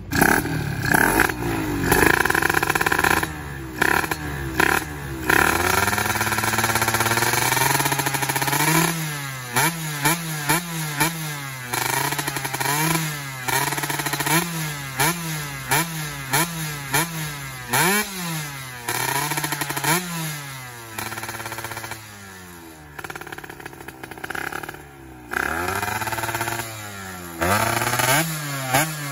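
Yamaha F1ZR two-stroke single-cylinder engine, freshly rebuilt with an RXS piston, running through an underbone expansion-chamber exhaust with a carbon silencer while it is run in. The throttle is blipped over and over, the pitch rising and falling about once a second, with a lower idle for a few seconds past the middle and more revs near the end. It sounds fierce.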